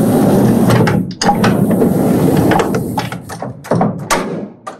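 Cylinder proof press running on its motor, its inking rollers and gears clattering as the linocut block is inked again; the clatter dies away near the end.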